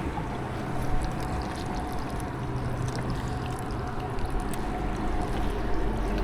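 A steady motor hum aboard a small fishing boat, with water pouring and splashing.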